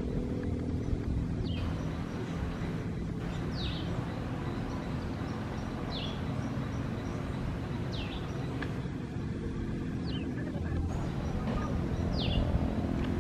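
Saddleback tamarins giving short, high chirps that slide downward, about one every two seconds, over a steady low hum.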